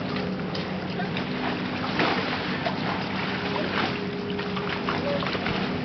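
Steady lakeside background noise with the low, even drone of a boat motor out on the lake, and a sharp knock about two seconds in.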